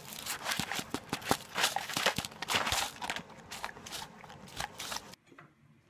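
Dog crunching crackers off a paper plate: a quick, irregular run of crisp crunches and chomps that cuts off suddenly about five seconds in.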